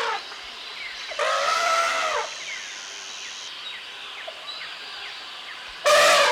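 Elephant trumpeting twice: a call of about a second starting just over a second in, and another starting near the end. Between the calls runs a jungle background of steady hiss with short chirping bird calls.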